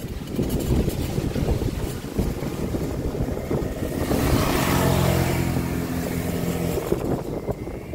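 Quad ATV engine running as it passes close, towing riders through flooded grass, with a hiss of water spray peaking about halfway through. Wind buffets the microphone throughout.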